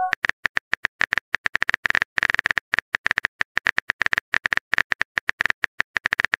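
Texting Story app's phone-keyboard typing sound effect: a rapid, uneven run of short clicks, one per letter as a message is typed out.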